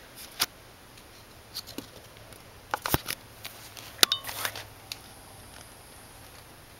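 A few faint, scattered clicks and taps over a quiet room, the sharpest a single click about three seconds in and a small cluster just after four seconds.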